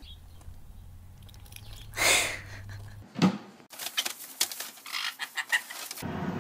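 Pet parrots squawking in short, harsh calls: one loud call about two seconds in, another just after three, then a quick run of short squawks and chatter in the second half.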